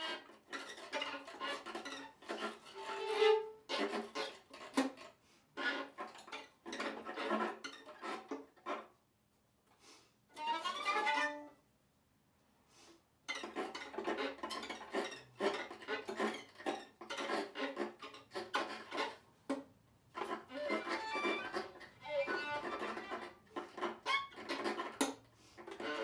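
Violin and viola duo playing contemporary music in short, broken stop-start bursts of sound, with a quiet gap about nine seconds in that is interrupted by one sliding note.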